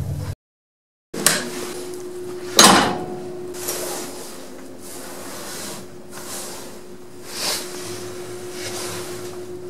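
After a moment of dead silence, lift machinery gives two sharp clunks, the louder about two and a half seconds in, then a few softer knocks over a steady hum.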